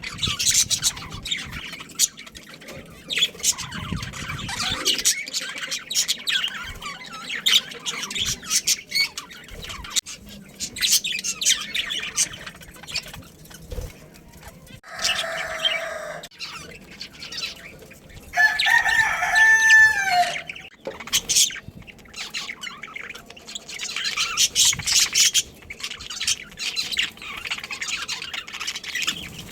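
Budgerigars chattering in quick, high chirps, with a rooster crowing once about two-thirds of the way through, a louder call of about two seconds, shortly after a brief lower call.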